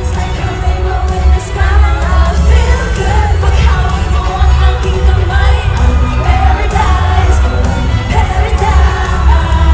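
Live pop concert: vocals sung over a loud backing track with heavy pulsing bass through the PA, with the crowd yelling and cheering along.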